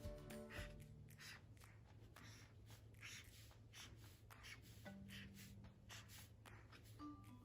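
Quiet drawing strokes on paper, a quick repeated scratching about two or three times a second, over faint background music.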